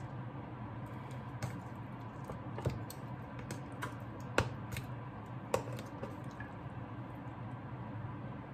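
Metal kitchen tongs clicking and tapping while handling marinated chicken pieces, with soft wet squishes of the meat, over a steady low hum. A few sharper clicks come about a third and two thirds of the way through.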